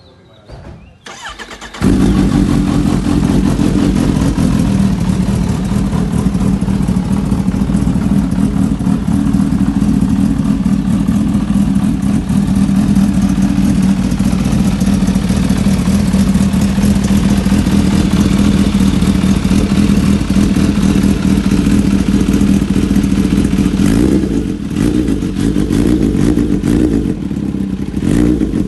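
Kawasaki Ninja H2's supercharged inline-four starting about two seconds in, then idling steadily through a Brock's Performance aftermarket exhaust. A few clatters near the end.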